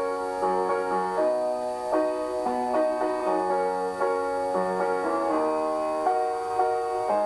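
Keyboard playing held chords over a simple low bass line, with the chords changing every second or so. The passage is instrumental, with no singing.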